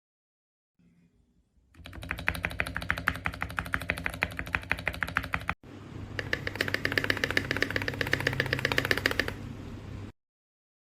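Fast typing on a mechanical keyboard: a rapid, even run of key clacks. It cuts off abruptly just past halfway, resumes a moment later, and stops suddenly near the end.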